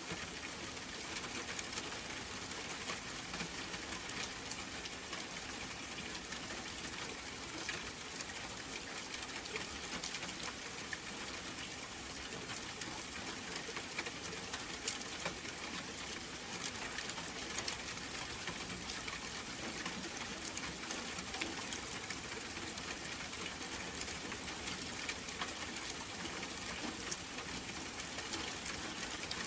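Steady rain falling, a continuous hiss with many individual drops ticking through it.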